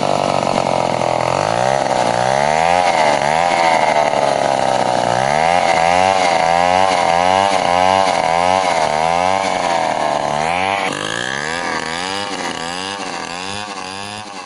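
Chainsaw cutting into a tree: the engine runs steadily at high revs at first, then its pitch dips and recovers over and over, about twice a second, as it bites into the wood. It gets gradually quieter over the last few seconds.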